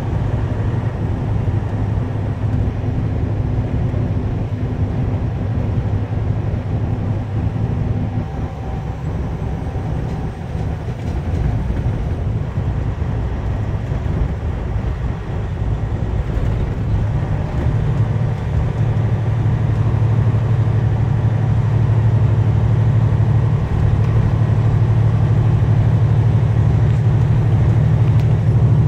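Truck engine and road noise heard inside the cab while driving: a steady low drone that eases off about a third of the way in, then returns stronger and a little louder through the second half.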